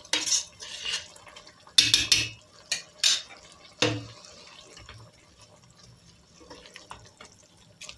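Spoon stirring spinach, bulgur and mince through freshly added hot water in a stainless steel pot: wet sloshing strokes and knocks against the pot, several in the first four seconds, then only faint stirring.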